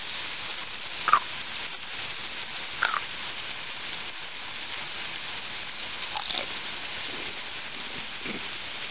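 Potato pieces frying in hot oil in a skillet: a steady sizzle with a few sharp pops, about one, three and six seconds in.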